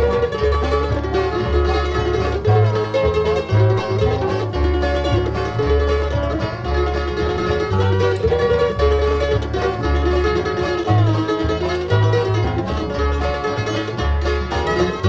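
Bluegrass band playing: banjo, mandolin, guitar and dobro over a bass walking steady alternating notes, with sliding notes in the lead.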